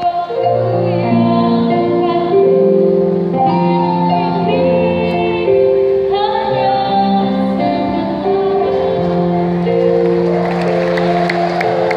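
Mixed choir of men and women singing an Indonesian Christian hymn, holding long notes.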